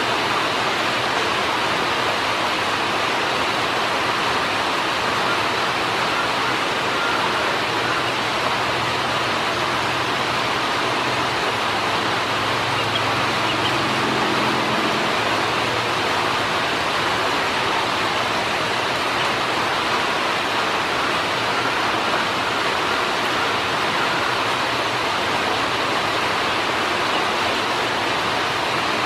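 Steady, even rushing noise, like heavy rain or running water, with a faint low hum swelling briefly about halfway through.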